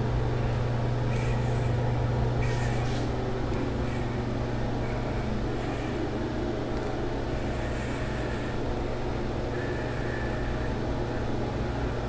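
Steady low machine hum, with a few faint rustles of handling about two and a half seconds in.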